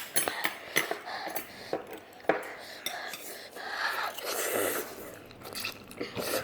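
Eating instant spicy noodles: utensils click and clink against a bowl or container many times, along with soft eating noises.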